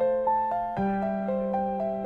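Background piano music: a gentle melody of notes struck about four times a second over a held low note, with a bass change a little under a second in.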